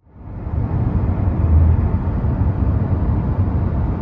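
Car driving at highway speed: a steady low rumble of road and engine noise, fading in at the start.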